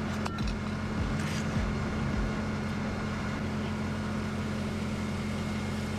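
A vehicle engine running with a steady low drone, with a few soft low thumps in the first two seconds.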